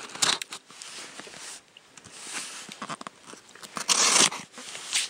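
Knife blade of a folding multitool slicing through the packing tape along a cardboard box's edge: a run of short scratchy cuts and scrapes, the loudest a rasping stroke about four seconds in.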